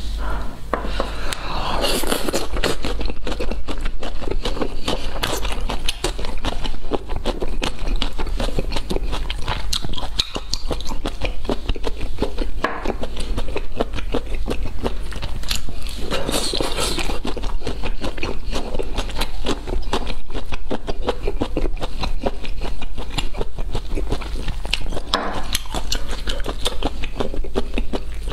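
Close-miked eating of large river snails in chilli sauce: wet sucking as the snail meat is pulled off a toothpick, chewing and a dense run of sticky mouth clicks, with louder bursts several times. A steady low hum runs underneath.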